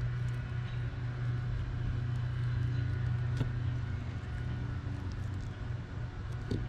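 Steady low motor hum, with faint scraping and a light tick from a fillet knife working along a fluke's backbone.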